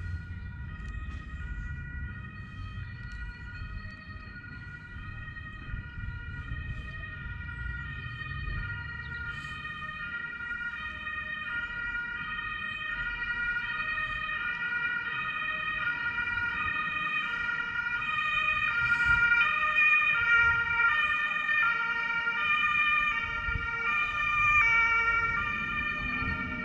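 Instrumental background music: synth notes and chords that step to a new pitch about twice a second, growing louder in the second half.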